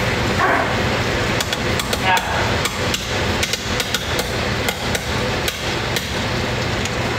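A run of sharp, irregular knocks and taps, several a second, starting about a second and a half in and stopping around six seconds, over a steady low hum.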